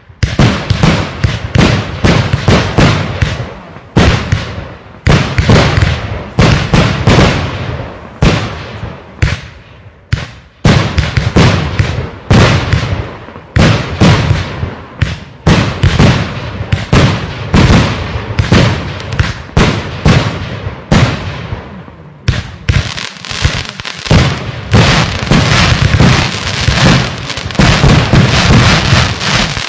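Aerial fireworks display: shells and comets launching and bursting in fast volleys of sharp bangs, several a second. There are short lulls about ten seconds in and again about twenty-two seconds in, then a denser barrage near the end.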